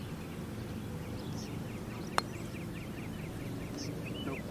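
Putter striking a golf ball once, a single sharp click about two seconds in. Birds chirp around it in a quick run of short high notes.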